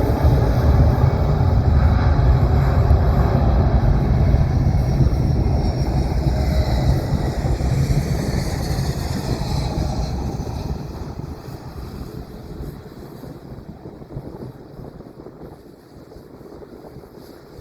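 Jet aircraft engines rumbling loudly close by, then fading away over several seconds as the aircraft moves off.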